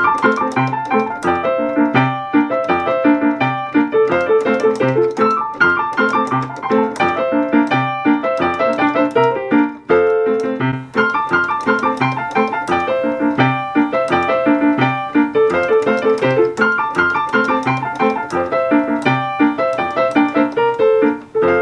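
Digital piano being played: a continuous piece of melody and chords over a regularly repeating bass note, with a brief break in the flow about ten seconds in.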